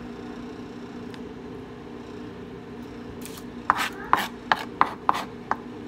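A kitchen knife chopping through a white onion onto a plastic cutting board: about half a dozen sharp strikes in a row, roughly three a second, starting a little past halfway. A steady low hum runs underneath.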